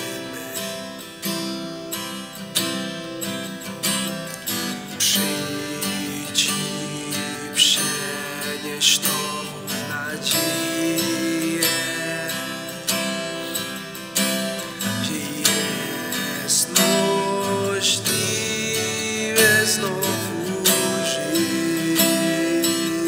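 Acoustic guitar played with strummed chords, each stroke ringing on into the next.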